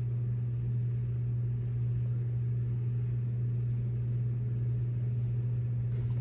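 A steady low hum with a faint even hiss over it, unchanging throughout.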